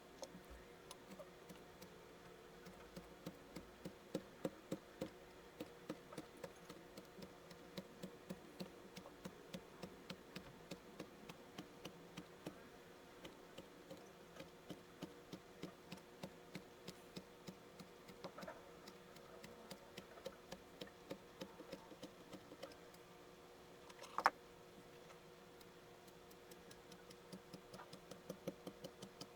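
Kinetic sand being scratched and scraped in quick, evenly repeated strokes, sped up four times, so each stroke is a short soft tick, about two or three a second, over a faint steady hum. One sharper, louder click comes near the end.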